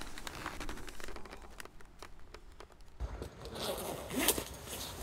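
Small clicks and scrapes as a motorcycle helmet with an intercom headset is pulled off, then a jacket zipper being pulled open with fabric rustling in the second half.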